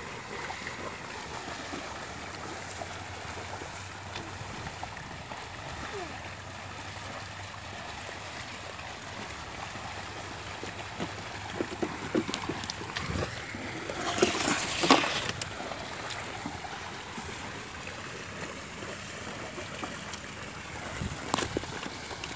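A herd of water buffalo wading through shallow water, their legs splashing and sloshing over a steady background hiss, with a louder run of splashes about halfway through.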